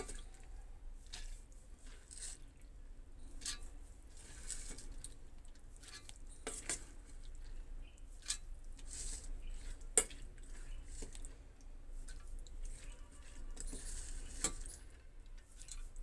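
Soaked moong dal being tipped into a stainless-steel mixer-grinder jar: soft wet sliding and pattering of the grains with scattered clinks against the steel, the sharpest about ten seconds in.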